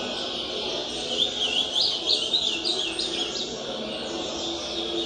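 Ultramarine grosbeak (azulão) singing one warbled song phrase of about two seconds. Behind it is a steady din of many other caged birds singing at the contest ring.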